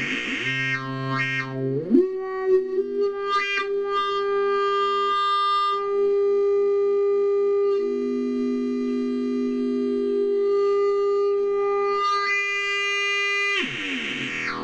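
Home-built weird sound generator, a small electronic noise synthesizer, making buzzy electronic tones. The pitch jumps around, glides up about two seconds in, holds one steady drone with shifting overtones, then sweeps down near the end.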